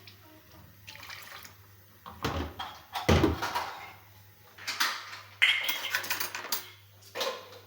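Kitchen work sounds: water splashing and dishes or utensils knocking, in several short, irregular bursts with a couple of dull thumps about two and three seconds in.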